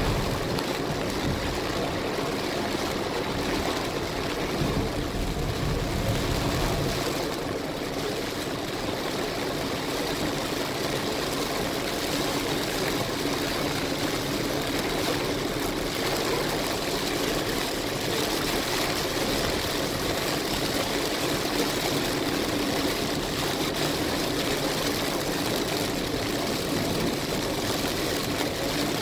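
Heavy rain hitting a moving car's windshield and roof, with tyres hissing on the flooded road, heard from inside the car. A steady, even rush of noise.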